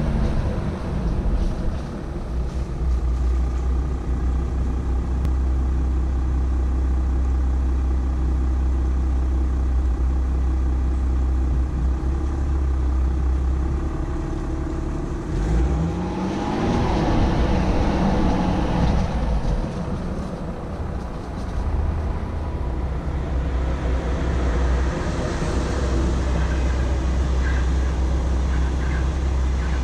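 Volkswagen Amarok pickup running with a steady low engine drone. About halfway through, the engine revs up for a few seconds, its pitch rising, then settles back to the drone.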